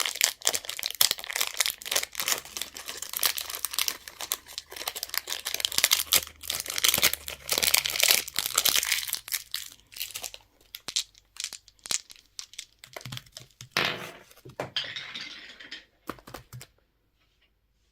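Candy wrappers being crinkled and torn open, a dense run of crackling rustles that thins out in the second half and stops about a second before the end.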